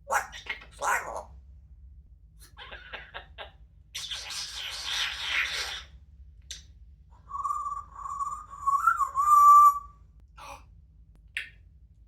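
Parrot vocalizing: short squawks and a run of clicks, then a raspy noise lasting about two seconds, then a wavering whistle held for a couple of seconds that swoops briefly near its end.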